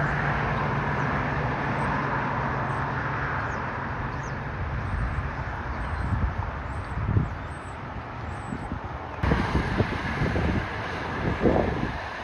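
Steady outdoor background noise, like distant traffic and wind, with faint high chirps through the middle. The background changes abruptly about nine seconds in, and after that there are gusty low thumps of wind on the microphone.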